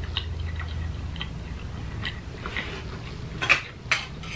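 Eating at a plate: faint small clicks while chewing, then a few sharper taps of cutlery against the dish near the end.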